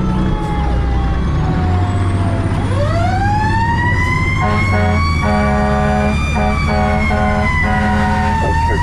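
Fire truck siren wailing, winding down and then rising again. Over the middle of the wail the truck's horn sounds in quick repeated blasts, with the engine running underneath.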